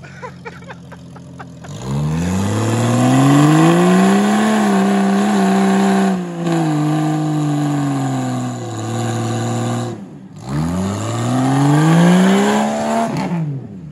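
Off-road 4x4's engine revved hard at full throttle: the pitch climbs about two seconds in, holds high for a few seconds and sinks back, the throttle lifts briefly, then it climbs and falls once more near the end.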